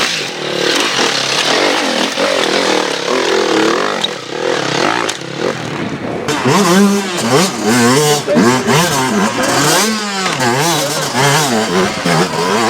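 Enduro motorcycle engine revving hard, its pitch swinging up and down quickly as the throttle is blipped over and over, mostly in the second half.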